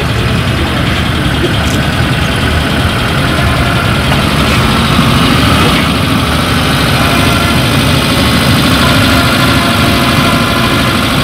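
Open jeep's engine running as the vehicle drives slowly past close by: steady engine noise with no speech over it.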